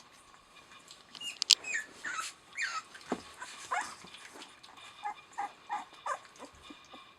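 Eleven-day-old Rottweiler puppies whimpering: a run of short, high-pitched cries that slide up and down in pitch, with a sharp click about one and a half seconds in.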